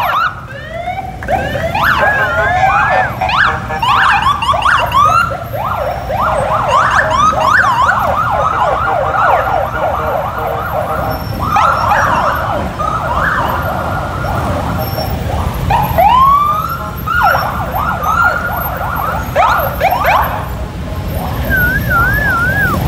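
Sirens on a column of police motorcycles: many overlapping short rising whoops and yelps, with a warbling tone near the start and again near the end. The motorcycle engines rumble low beneath.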